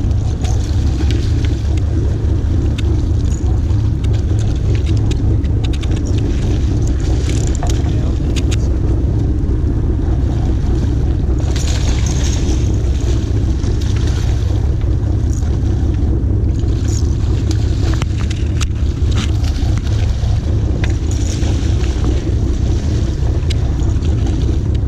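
A sportfishing boat's engine running with a steady low rumble, with wind buffeting the microphone. Scattered sharp ticks and a few short bursts of hiss sit over it, around twelve seconds in and again near the end.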